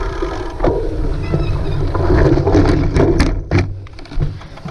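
Cyclocross bike racing over rough ground: a steady rumble and wind noise on the microphone, with a quick run of sharp knocks and rattles about two to three and a half seconds in.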